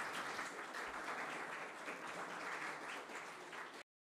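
Audience applauding, a dense steady patter of many hands clapping that cuts off suddenly near the end.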